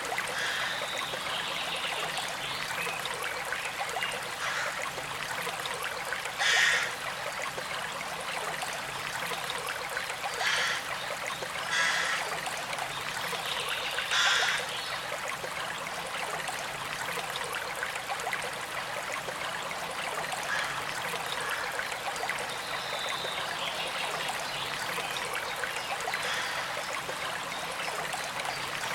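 A stream trickling and gurgling steadily, with four short louder sounds about a quarter to halfway through.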